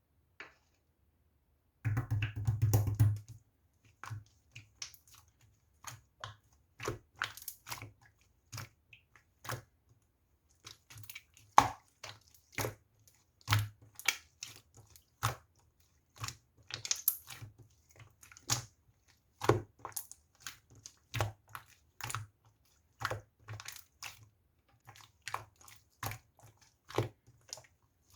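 Irregular crunching and crackling: a dense burst about two seconds in, then single sharp crackles every half second or so.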